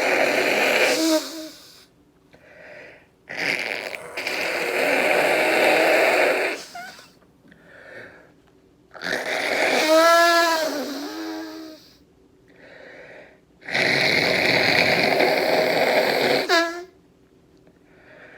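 A man blowing his nose forcefully four times, each blow lasting a few seconds, with short breaths drawn in between. The third blow has a honking tone that wavers in pitch. The blows are clearing his nose after a sneezing fit.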